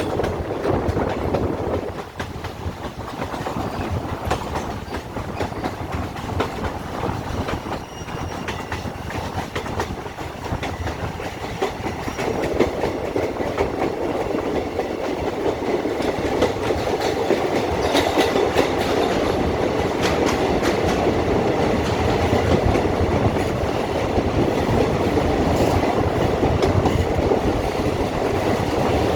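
Train running on the line, its wheels clattering steadily over the rail joints, getting louder about twelve seconds in.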